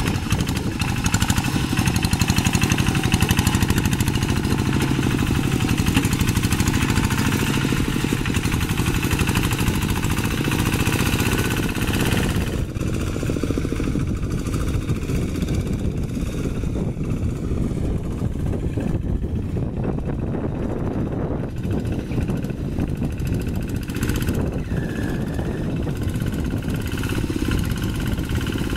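Single-cylinder Kubota diesel engine of a two-wheel hand tractor running steadily under load, with a rapid, even exhaust beat as it drags a rake and cage wheels through paddy mud. It turns more muffled a little under halfway through.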